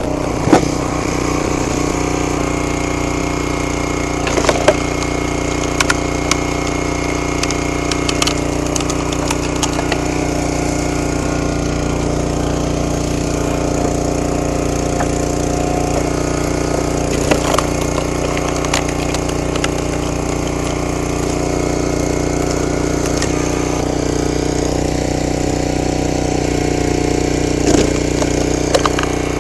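Gas-engine log splitter running at a steady pitch, with sharp cracks of firewood splitting every few seconds.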